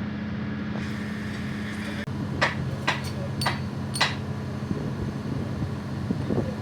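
Four sharp clicks about half a second apart as plastic parts are pushed and fitted into an air gun, over a steady low mechanical hum.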